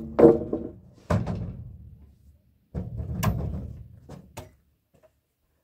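Long wooden poles being handled and dropped onto a pile: a series of heavy wooden knocks and clatters, each ringing briefly, coming a second or so apart and stopping a little before the end.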